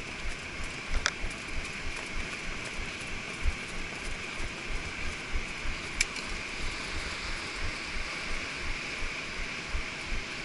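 A horse's hoofbeats on sand, a steady run of dull thuds about two to three a second, under a constant hiss. Two sharp clicks, one about a second in and one near the middle.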